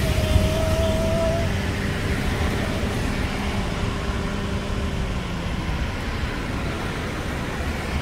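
Road traffic noise: a steady low rumble of vehicles on the road, easing slightly over the seconds. A thin steady tone sounds over it for the first second and a half.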